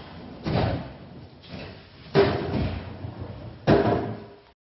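Doors being pushed shut: three heavy slams about a second and a half apart, the second and third louder.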